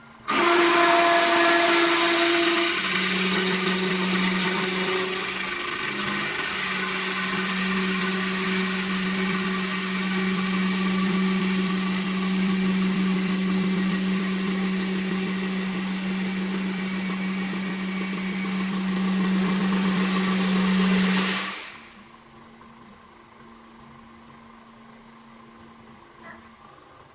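CNC wood lathe running and cutting a wooden bowl: a steady motor hum under a rough cutting noise, starting suddenly and stopping abruptly about 21 seconds in, after which only a faint hum remains.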